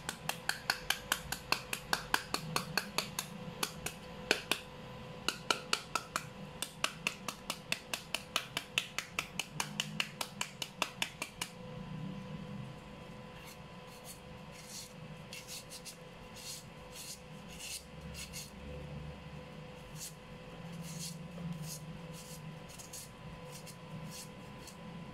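A large kitchen knife hacking into a peeled green papaya held in the hand: quick blade-on-flesh chops at about four a second, scoring the flesh for shredding. After about twelve seconds it turns to slower, quieter strokes as the scored strips are shaved off.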